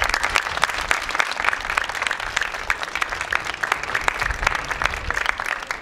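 A small audience applauding.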